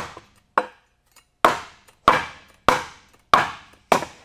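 Point of a steel pickaxe striking the end of a wooden board again and again: about seven sharp knocks, roughly one every 0.6 seconds, each ringing briefly.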